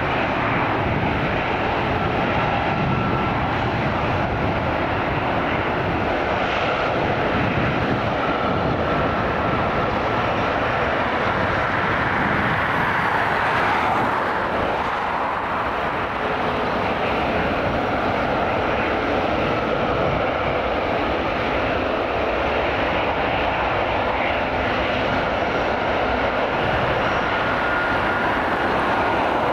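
GE90 turbofan engines of a Boeing 777-300ER running at low taxi thrust: a steady rushing jet noise with a faint high whine over it, dipping slightly about halfway through.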